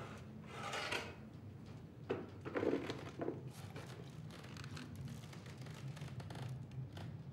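Quiet indoor room tone with a steady low hum, and a few soft rustling and handling sounds, the loudest about two to three seconds in.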